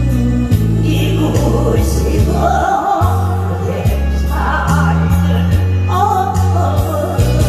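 Live amplified music: sung phrases over a band accompaniment with a steady, heavy bass line.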